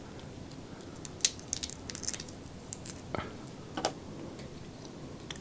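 Soft, scattered crackles and wet clicks from a cooked shell-on shrimp being peeled by hand and chewed, bunched in a few short clusters.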